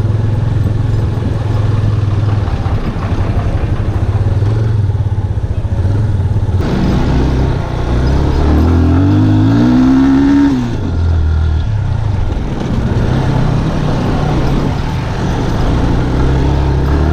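Motorcycle engine running on the ride. About seven seconds in it revs up, the pitch climbing for a few seconds before dropping back to a lower, steady note.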